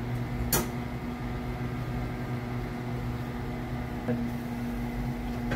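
A steady motor hum, like a kitchen fan or appliance, with a single sharp clink about half a second in and a fainter knock near the end.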